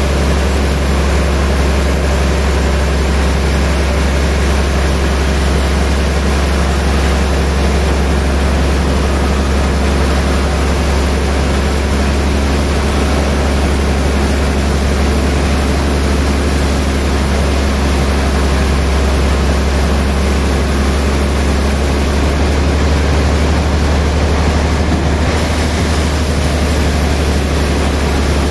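Large log band saw running with a loud, steady low hum.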